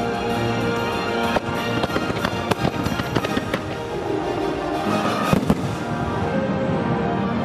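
Aerial fireworks going off in a rapid string of sharp bangs over steady show music, with the loudest pair of bangs about five seconds in.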